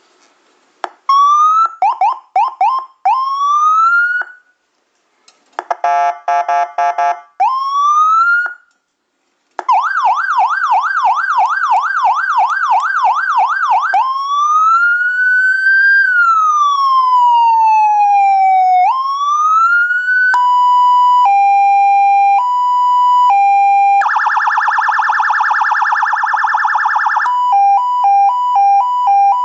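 Landun CJB100PD electronic police siren with Whelen-style tones, run through its tones one after another. It goes from short rising whoops, with a buzzing horn blast between them, to a fast yelp from about ten seconds in. Then come a slow wail that rises and falls, a high-low two-tone, another horn blast, and finally a fast high-low warble.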